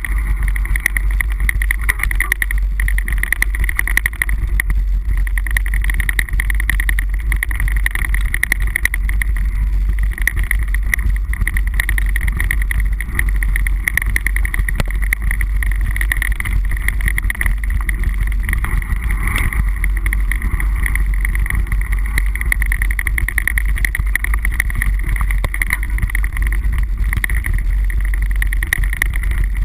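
Mountain bike ridden along a dirt singletrack, heard through a bike-mounted action camera: heavy wind rumble on the microphone with a constant high buzz and continual clicks and rattles as the bike and camera mount jolt over the bumps.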